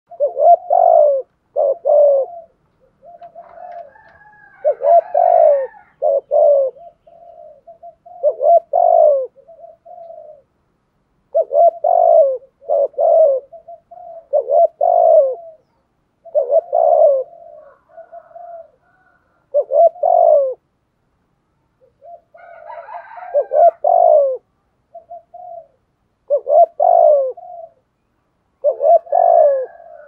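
Spotted dove cooing in repeated phrases: clusters of two or three loud, low coos every two to three seconds, with softer coos in between.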